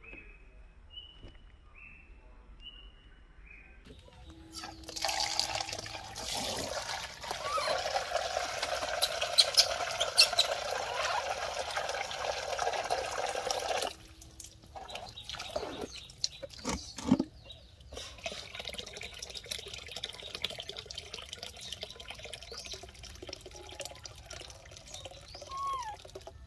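Water from an outdoor tap running and splashing into a plastic baby bath tub. It is loud for about nine seconds, then drops to a weaker trickle with a few knocks.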